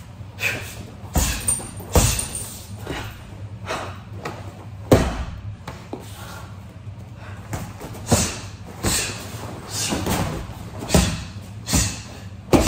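Punches and kicks landing on vinyl punching bags, a freestanding Versys VS.BOB dummy and a hanging heavy bag: an irregular series of about a dozen sharp thuds and slaps. Near the end the freestanding dummy is knocked over onto the mat.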